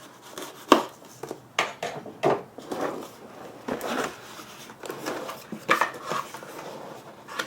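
Sealed cardboard keyboard box being handled and pried open: irregular rustles, scrapes and knocks, with a sharp knock under a second in.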